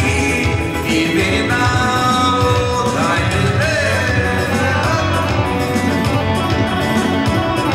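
Dance music with a singer, played by a band with a keyboard.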